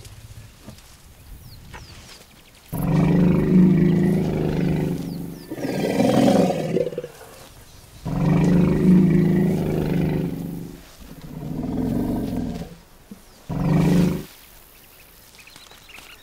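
Lions growling: a run of about five deep, drawn-out growls with short pauses between, the second and last ones shorter. They are growling at elephants closing in on them.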